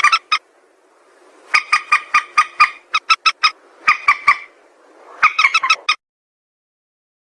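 Call of the mandar sawah, a paddy-field rail: loud bursts of short, rapid notes, several groups one after another, cutting off suddenly about six seconds in.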